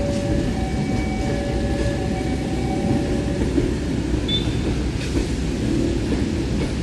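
KAI stainless-steel passenger train, the Mutiara Selatan trainset, rolling past over the level crossing: a steady rumble of wheels on rail. Faint steady high tones sound over the first half.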